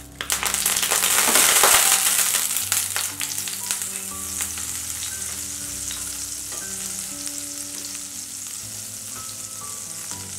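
Butter sizzling as it melts in hot oil in a non-stick frying pan, pushed about with a spatula. The sizzle surges loudest a second or two in as the butter hits the hot oil, then settles into steadier, quieter frying.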